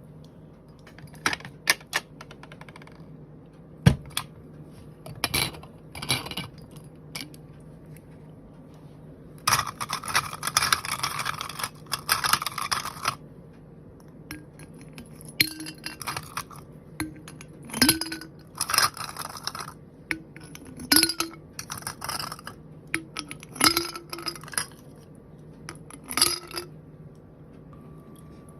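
Small hard objects being handled during an unboxing: irregular taps, clicks and light clinks, with a few seconds of packaging rustle near the middle, over a faint steady hum.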